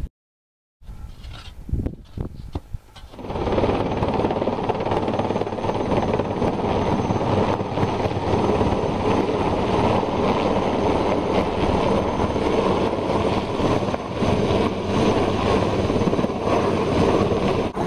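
Helicopter flying overhead with a cargo net slung beneath it, its rotor and engine running as a loud, steady noise that sets in about three seconds in.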